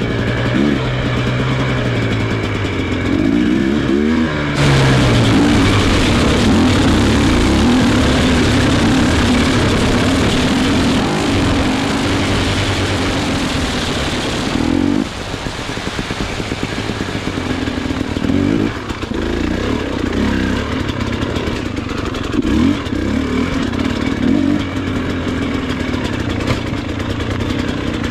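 A motor vehicle's engine revving up and down as it is driven. From about five seconds in, a loud rushing noise covers it for roughly ten seconds, then the engine is heard again with short bursts of throttle.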